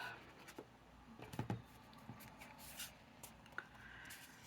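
Faint rustling of paper being handled, with a few light taps and clicks.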